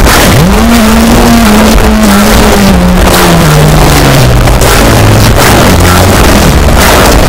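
Brutal extreme-metal track playing loud and dense, with heavily distorted instruments. A low note bends sharply up just after the start, then sinks slowly over the following seconds.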